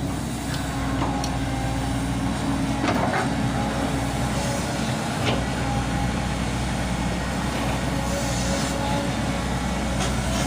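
Volvo 200 excavator's diesel engine running steadily, with a few short clicks or knocks from the working machine.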